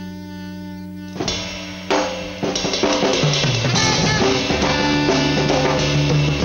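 Live band music: a held chord fades out, then about a second in the drum kit comes in with hits and a fill. The full band starts playing after that, with drums and electric bass guitar.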